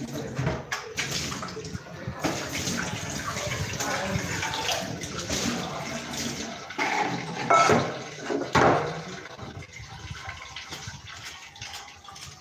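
Kitchen tap water running and splashing while ingredients are rinsed by hand in a plastic bowl at the sink, with a couple of louder splashes. The water stops about three-quarters of the way through, leaving light clicks and taps.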